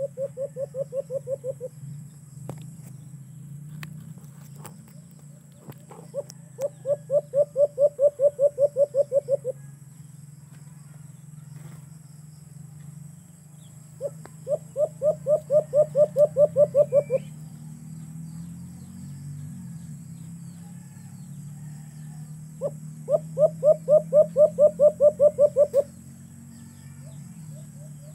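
A caged dove calling in bursts of about a dozen quick coos, some four a second, each burst about three seconds long and repeated roughly every seven seconds, over a steady low hum.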